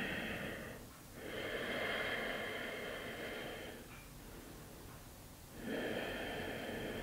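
A person's slow, audible breathing: one breath fading out about a second in, a long breath of about two and a half seconds, then another starting near the end.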